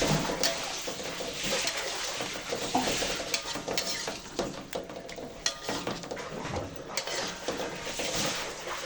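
A utensil stirring food in a cooking pan, scraping and clinking irregularly against the pan.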